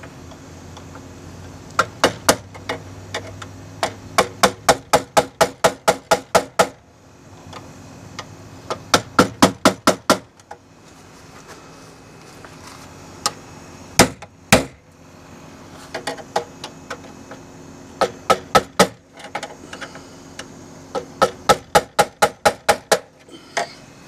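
Rapid metal tapping in runs of several strikes, about four or five a second, with two harder single blows near the middle: a screwdriver tapped against the steel electrical panel's knockout to push the loosened knockout ring back into place.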